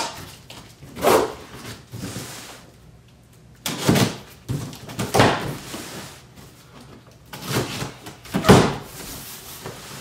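Cardboard shipping box being cut open: a box cutter slicing and scraping along the packing tape, with hands knocking and dragging on the cardboard. About half a dozen short scrapes and knocks with quiet gaps between, the loudest near the end.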